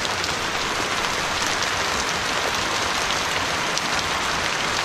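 Heavy rain mixed with small hailstones falling on wet stone flagstones: a steady hiss with scattered faint ticks.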